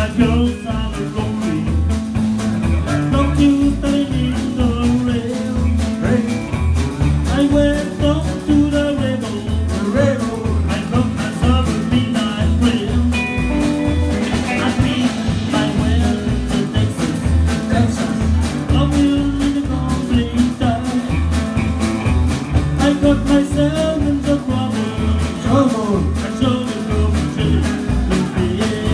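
Live rock 'n' roll band playing, with upright bass, acoustic-electric and hollow-body electric guitars and a singer, over a steady beat.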